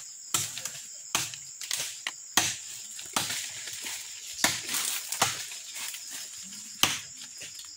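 Machete chopping into the trunk of a small tree by hand: about eight sharp blows landing irregularly, roughly one a second. Insects buzz steadily in the background.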